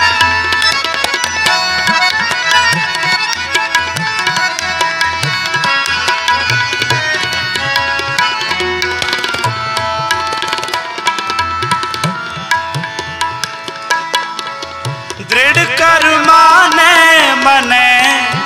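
Harmonium and tabla playing an instrumental interlude of Sikh kirtan, steady reed chords over tabla strokes. Near the end a singer's voice comes in over them and the music gets louder.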